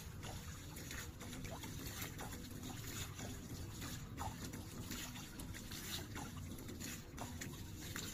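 Water trickling and splashing in small, irregular splashes over a low steady rumble.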